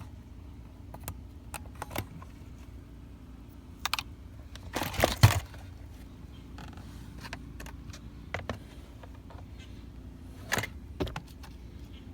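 Car key jangling and clicking at a Mercedes-Benz C300's electronic ignition switch, in scattered sharp clicks, with the loudest rattle about five seconds in and a couple more clicks near the end.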